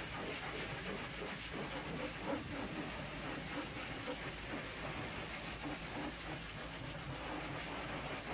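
High-pressure washer jet spraying onto a tanker truck's metal valve couplings, a steady hiss of water with mist.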